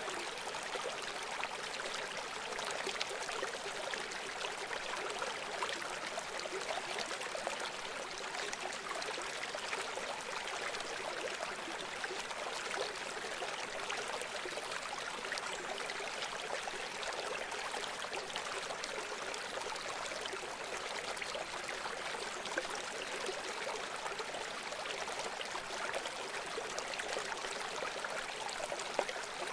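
River water flowing steadily over stones, a constant rushing with fine splashing and trickling.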